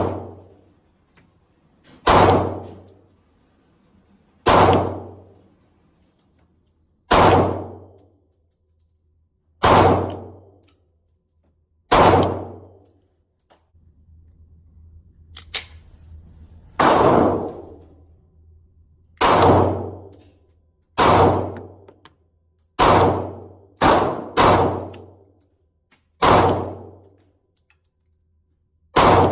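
Taurus G2C 9mm pistol fired in single aimed shots, about a dozen, one every two to two and a half seconds, each report ringing out for about a second. There is a longer gap in the middle, and near the end two shots come close together.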